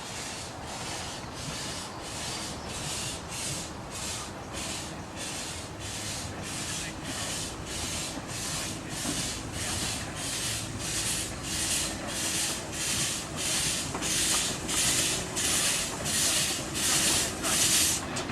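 Miniature 15-inch gauge steam locomotive working a train, its exhaust chuffing in even beats about twice a second and growing louder as it draws nearer.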